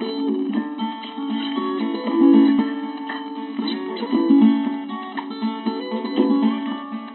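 Background music of plucked and strummed acoustic guitar, sounding thin with no bass.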